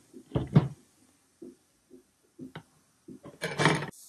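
Handling noise from hard plastic parts of a UV resin curing station on a tabletop: a couple of knocks about half a second in, a few light taps, then a short rubbing scrape near the end.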